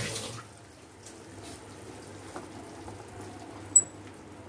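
Water poured into a pan of simmering chutney at the start, then quiet simmering as the coconut and sesame paste is stirred with a silicone spatula. One short sharp high click near the end.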